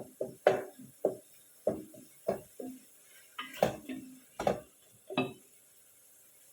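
Cooking utensils knocking and clinking against a pot or pan, about ten separate strikes, some with a brief metallic ring, stopping about five seconds in.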